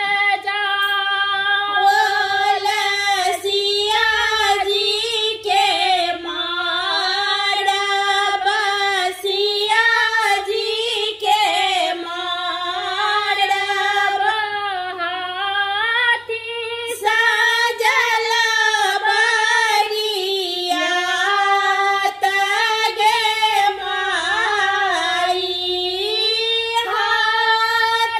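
Two women singing a traditional Maithili wedding-rite folk song (vivah geet) together in one melody line, unaccompanied by any instrument.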